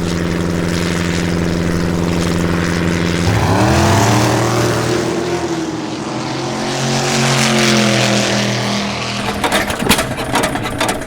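Engine sounds: a steady droning engine, then about three seconds in a second engine swells in, its pitch rising and then slowly sinking as it passes, with sharp clicks near the end.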